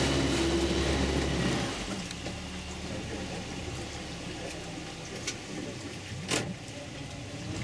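Boat engine running, then dropping to a quieter idle about two seconds in. A single sharp click near the end.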